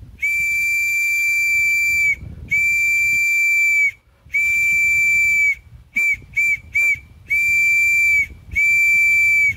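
Homemade bamboo survival whistle blown in an SOS distress pattern: three long blasts, three short ones, then long blasts again, all at one steady high pitch.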